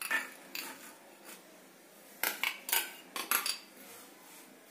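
A spoon scraping and clinking against a jar and a metal pan as pieces of jaggery are tipped into the pan. There are several short scrapes and knocks, the loudest between about two and three and a half seconds in.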